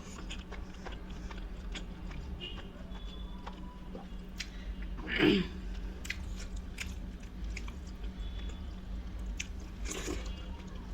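Close-up chewing and biting of rice and curry, with many short wet mouth clicks and smacks, over a steady low hum. A single louder sound stands out about five seconds in.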